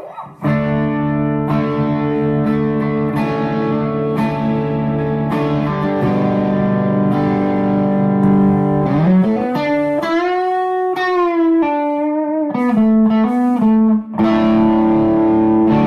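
Les Paul electric guitar played through a Bad Cat Bobcat 5R amp with a Klon-clone overdrive pedal: a sustained, mildly overdriven lead tone. About nine seconds in, a note is bent up, held with vibrato, then let back down before the lick goes on.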